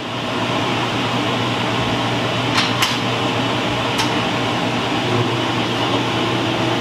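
1950s metal shaper's electric motor and drive running steadily just after start-up, with no cutting strokes, while its pump circulates oil to the ways after the machine has sat idle for a week. A few light clicks come about two and a half and four seconds in.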